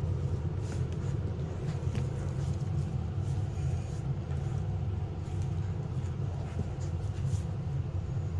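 A steady low rumble, like a fan or other running machine, with a few faint scattered clicks over it.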